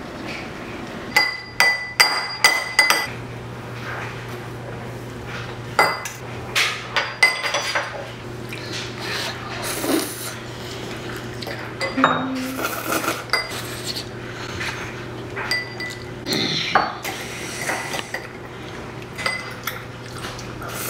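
Metal spoon and forks clinking and scraping against a stainless steel saucepan and dishes. There is a quick run of ringing strikes about a second in, then scattered clinks.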